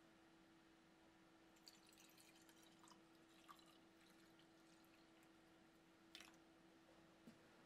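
Liquid poured into a glass beaker over small steel parts: a faint trickle and splash with a few light drips and ticks.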